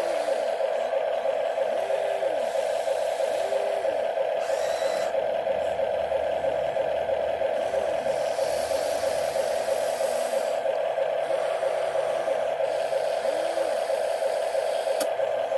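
Small electric gear motors of a toy RC excavator whirring steadily, with a motor repeatedly spinning up and winding down every second or so as the controls are worked.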